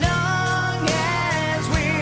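Background music: a slow pop love song, a sung vocal line with vibrato over sustained chords.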